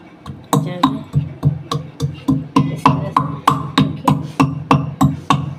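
Metal pestle pounding ginger and black pepper in a steel mortar, in steady strikes about three a second, each a sharp knock with a short metallic ring. The pounding starts about half a second in.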